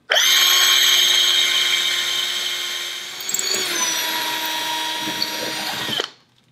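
Cordless drill running steadily as its masonry bit bores a pilot hole through a mounting plate into concrete block for a Tapcon screw. Its whine dips slightly in pitch about halfway through, and it stops near the end.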